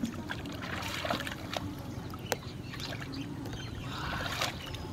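Bare feet wading through shallow, muddy paddy water and hands reaching into it: light splashing and trickling with scattered small clicks, one sharper click about halfway through.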